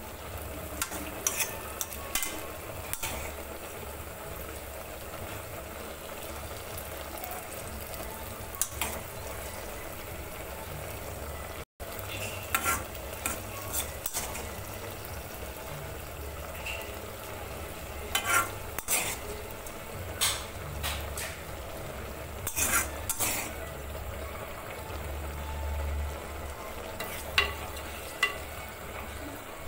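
Dal simmering and sizzling in a clay pot under a freshly added tempering of garlic and dried red chillies, with a metal ladle clinking against the pot now and then and stirring near the end.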